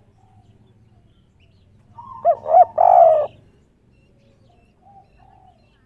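Spotted dove cooing once about two seconds in: two short quick notes, then a longer note that falls slightly, the three-part 'kuk 3' coo.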